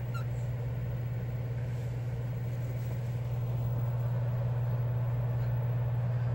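Steady low hum throughout, with one brief cockatoo chirp right at the start.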